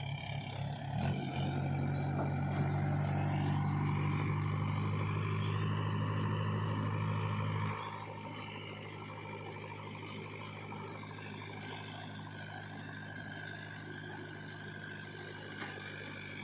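Heavy diesel engine running steadily. It is louder for the first several seconds, then drops sharply to a lower, steady level about eight seconds in.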